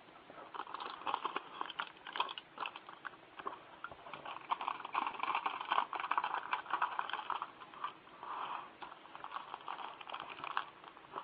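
Heavy-duty aluminum foil crinkling and crackling as it is folded by hand, in uneven spells of dense crackle with short lulls.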